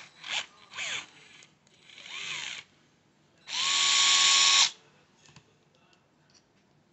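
DeWalt gyroscopic cordless screwdriver whirring in short runs as it turns a small screw. Two brief blips come first, then a longer run that rises and falls in pitch as the wrist twist changes its speed, then the loudest, steady run of about a second just past the middle. Faint clicks follow.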